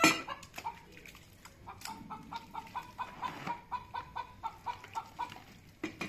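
Chickens clucking in a quick, even run of short notes, about four a second, after one loud, brief call at the very start.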